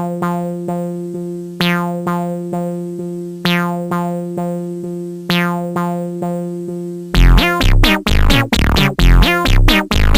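Electronic music: repeating synthesizer notes over a held bass tone, then about seven seconds in a heavy bass beat with quick falling synth sounds comes in.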